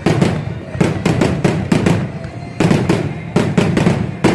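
Fireworks display: a fast, uneven string of sharp bangs from shells launching and bursting, one after another.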